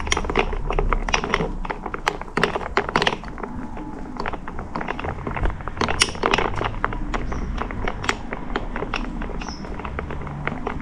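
Metal spoon clinking and scraping against a drinking glass while spooning and spreading whipped coffee on top: an irregular run of small sharp clicks and taps.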